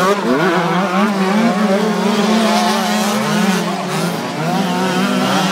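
A pack of small two-stroke youth motocross bikes racing, many engines running at once, their pitches rising and falling as the riders rev and shift.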